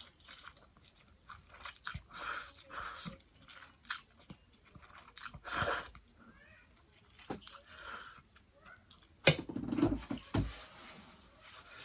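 Close-up chewing and biting of food, wet irregular mouth sounds with a sharp click about nine seconds in followed by a louder stretch of chewing.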